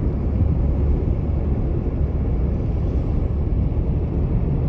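Car on the move, a steady low rumble of engine and road noise.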